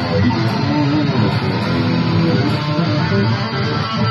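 Fender Telecaster electric guitar played through a Blackstar amplifier: a fast, continuous passage of notes.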